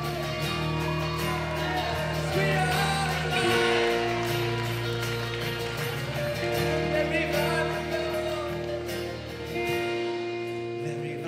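Live worship band playing a slow instrumental passage: held keyboard and guitar chords over bass, changing chord about every three seconds. The bass drops out near the end.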